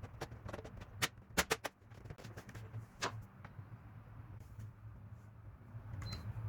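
A few sharp clicks and knocks: one about a second in, a quick run of three shortly after, and one more at about three seconds, over a steady low hum.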